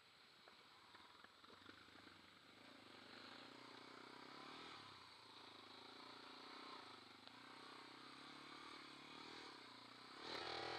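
Sport quad (ATV) engine running faintly under a rider, its pitch rising and falling as the throttle is worked over bumpy ground. Scattered clicks and knocks come in the first two seconds, and a louder surge comes near the end.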